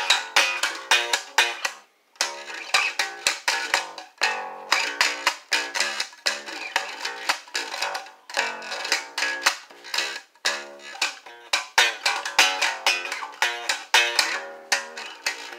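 Music played on a plucked string instrument: a quick, steady run of picked notes, briefly stopping about two seconds in and again around ten seconds.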